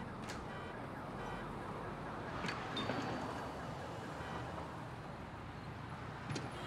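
Steady outdoor traffic hum with a few brief sharp clicks.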